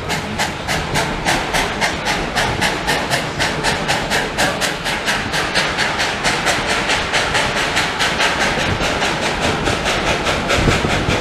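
Narrow-gauge steam locomotive chuffing past as it pulls a passenger train, its exhaust beats coming quick and even at about four a second.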